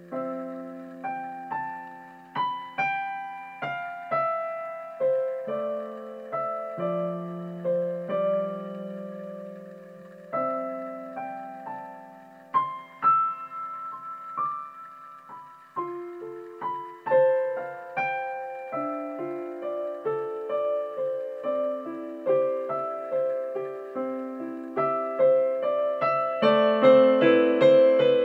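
Solo piano music playing a slow melody over chords, getting fuller and louder near the end.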